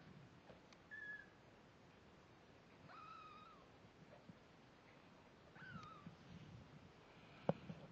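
Week-old kittens mewing faintly: three thin, high-pitched mews spread a couple of seconds apart, the last one falling in pitch. A sharp click near the end.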